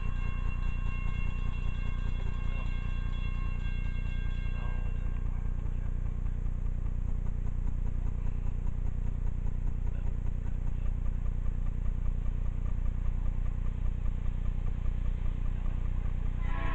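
Distant diesel locomotive air horn sounding a chord for the grade crossing. It fades out about four seconds in and blows again, louder, right at the end, over a steady low rumble.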